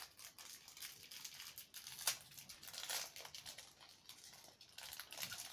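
Small parcel's packaging crinkling and rustling as it is opened by hand, with one sharper crackle about two seconds in.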